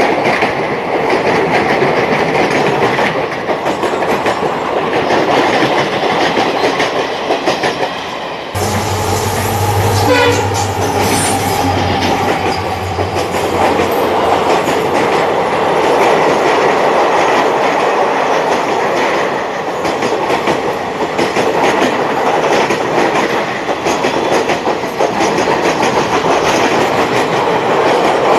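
Express passenger train's coaches running past at speed, wheels clattering steadily over the rail joints. A train horn sounds briefly about ten seconds in.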